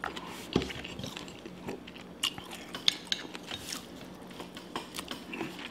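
Eating a sauce-covered seafood boil: crab legs and lemon handled by hand, then seafood bitten and chewed, heard as scattered sharp clicks and crunches.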